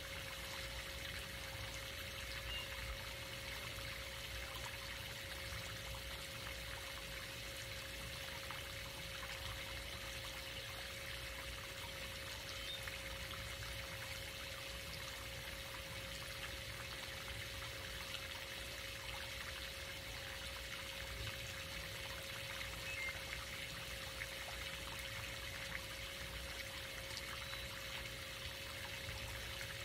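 Swimming pool fountain jet splashing steadily into the pool water, with a faint steady tone alongside.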